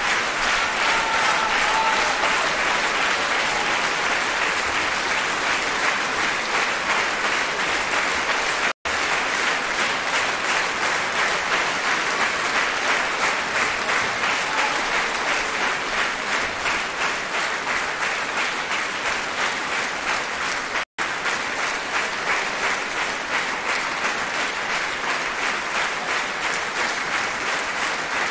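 Large theatre audience applauding, with the dancers on stage clapping along. The applause falls into rhythmic, unison clapping in the second half, and the sound cuts out for an instant twice.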